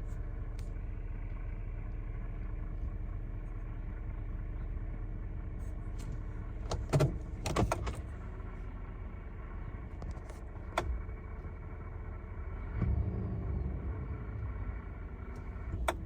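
2024 Chevy Silverado 2500 HD idling with a steady low drone and a faint grinding that the owner likens to a spinning bearing. A few sharp clicks come about halfway through and again near the end, with a brief swell in the hum a little after two-thirds of the way in.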